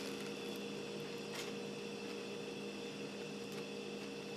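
Steady low electrical hum of room tone, with a faint single click about a second and a half in.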